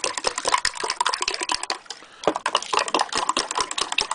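A metal teaspoon rapidly beating raw eggs and sugar into kogel-mogel in a glass mug: a fast run of clinks against the glass, about ten a second, with a short pause about two seconds in.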